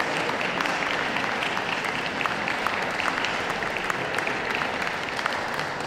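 Indoor audience applauding steadily: a dense patter of many hands clapping.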